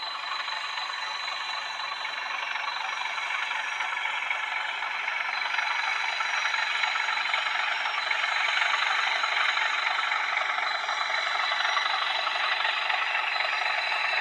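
EM gauge model diesel locomotive and its goods wagons running along the track, a steady mechanical running noise with a thin high whine that grows louder as the train comes closer.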